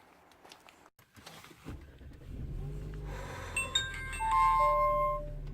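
A car engine starting and settling into a steady idle, with a short electronic chime of several notes from the car's dashboard or infotainment system over it.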